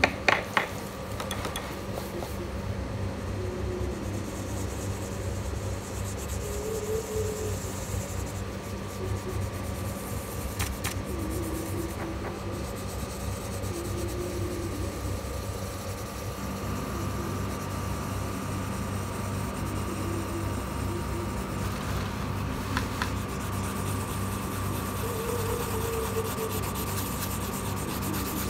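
Colored pencil rubbing back and forth across paper as an area is shaded in, over a steady background hum. A couple of sharp clicks come about half a second in.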